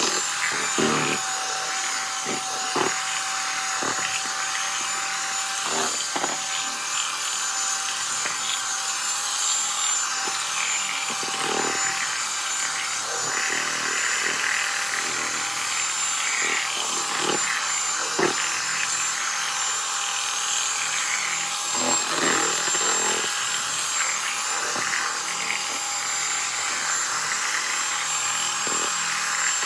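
Electric hand mixer running steadily, its beaters churning thick cream in a plastic tub, with a constant high motor whine and scattered clicks and knocks. The cream is being whipped on the way to butter for Herero cooking oil (omaze wozongombe).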